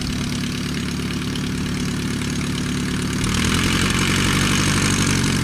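Hanriot replica's 35 hp Franklin radial engine and propeller running steadily at low throttle, then opened up a little after three seconds in, running louder and harsher.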